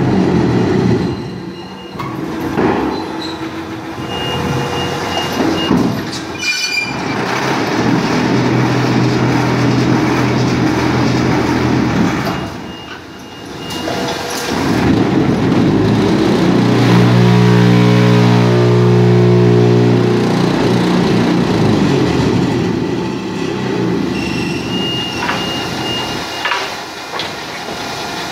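Automatic concrete block-making machine running through its cycle, with the conveyor feeding concrete mix into the hopper and a sharp knock about six seconds in. A loud, steady low hum sets in twice, briefly about eight seconds in and more strongly for about four seconds past the middle: the mould's vibrating table compacting the blocks.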